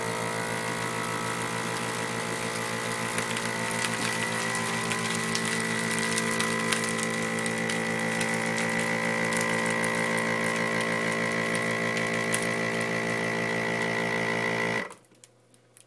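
Countertop vacuum sealer's pump running steadily, drawing the air out of a plastic vacuum-seal bag, then cutting off suddenly about fifteen seconds in.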